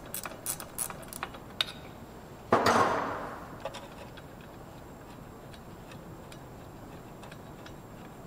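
12 mm ratcheting wrench clicking about four times a second as it loosens a bolt on the driveshaft's rear U-joint, stopping a little over a second in. About two and a half seconds in there is one louder metallic clatter that fades out, then faint small ticks as the loosened bolt is worked by hand.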